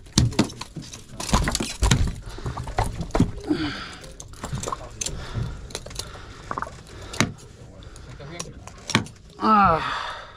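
Metal pliers clicking, knocking and scraping against a hook while it is worked out of a tuna's mouth on a boat deck, in irregular sharp clicks. A short vocal exclamation comes near the end.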